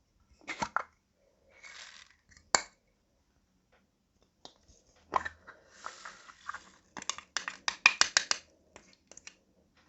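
Slime being handled: sharp, sticky clicks and pops with soft scraping between them, and a quick run of clicks about seven seconds in.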